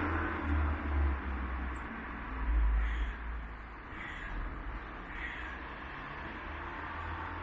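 A bird calls three times, about a second apart, over a low, uneven rumble.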